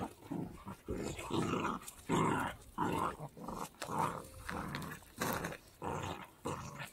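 Dogs growling while they wrestle in play: a string of short, rough growls, about one or two a second.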